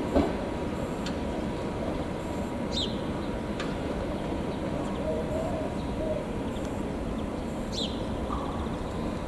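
Steady low rumble of an ER2R electric multiple unit running through the station, with two sharp knocks right at the start. A bird chirps briefly about three seconds in and again near the end.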